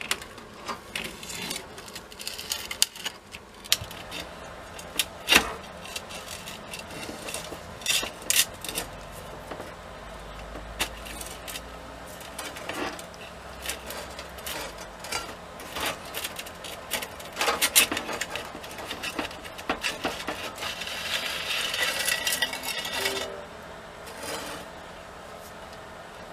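Glass panes and a rusty metal frame being taken apart by hand: scattered clinks, knocks and scrapes of metal and glass, with a longer stretch of scraping about twenty seconds in.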